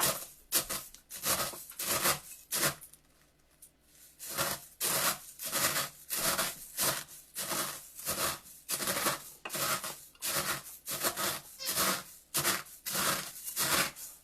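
Cornflakes being crushed with a Pampered Chef Mix 'N Chop: repeated crushing strokes about two a second, with a short pause about three seconds in.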